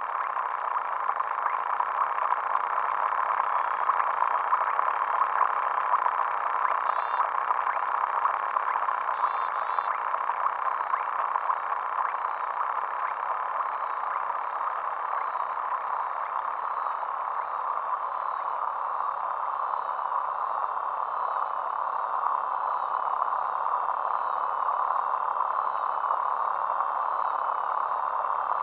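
Quadcopter drone's propellers and motors running: a steady buzzing hiss with faint high whining tones that waver in pitch in the second half.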